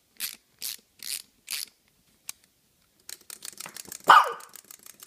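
A small dog barks once, sharply, about four seconds in, after a run of quick clicking. Earlier come four short breathy puffs about two a second.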